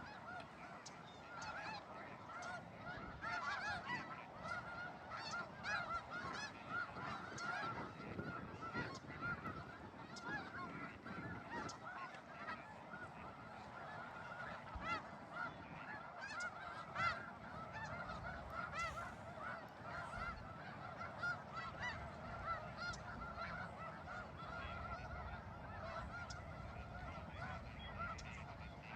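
A large flock of waterfowl calling, with many short calls overlapping one another without a break.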